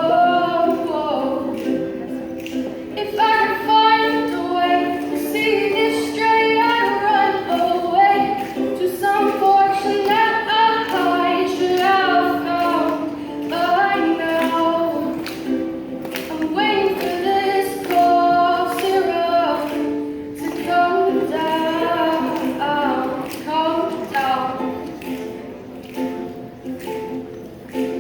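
A female vocalist singing a song to her own strummed ukulele accompaniment.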